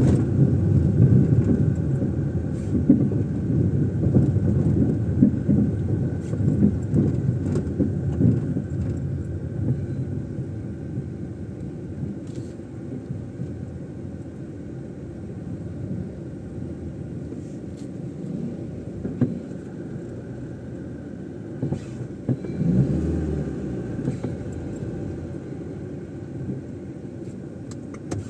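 Car driving on city streets: a steady low rumble of road and engine noise, heavier at first and then easing off. There are a few light clicks and one short low thump a little past the middle.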